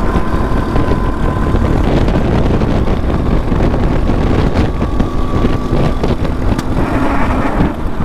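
Racing go-kart's engine running hard at racing speed, heard from the driver's seat, with a thin steady whine over a dense rumble. The whine comes back slightly higher just past the middle, and there is a single click near the end.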